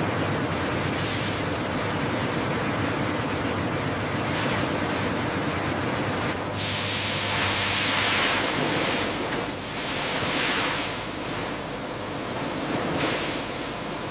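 Steady rushing noise that turns brighter and hissier with a sudden start about six and a half seconds in.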